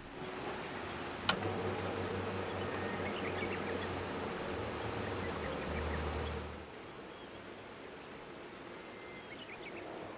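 Steady rain and river noise with small birds chirping. For the first six seconds a low steady hum and louder rushing sit under it, with a single sharp click about a second in; then the sound drops suddenly to a quieter, even rush.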